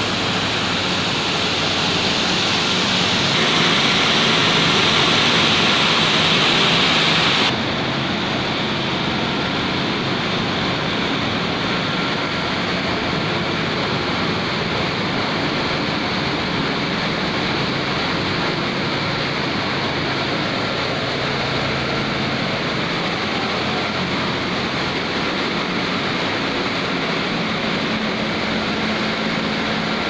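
Steady industrial machinery noise from a running rotary-drum carbonization furnace plant. A louder rushing hiss comes in about three seconds in and stops abruptly at about seven and a half seconds, leaving an even mechanical drone with a faint steady whine.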